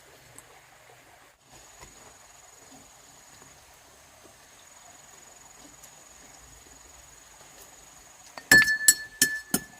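A fast run of sharp metallic strikes with a ringing tone, several a second, beginning near the end: hammer blows. Before them, only a faint steady high whine.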